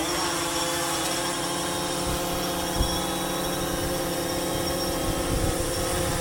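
Quadcopter drone's propellers and motors running close by with a steady, many-toned buzz, at the moment of takeoff. A single short knock sounds about three seconds in.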